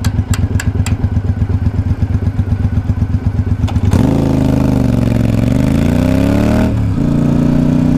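2012 Triumph Speedmaster's 865 cc parallel-twin engine idling with a lumpy, pulsing beat, with a few light clicks near the start. About halfway through it revs and the bike pulls away, the pitch rising; near the end the note drops for a moment as it shifts up, then runs on steadily at higher revs.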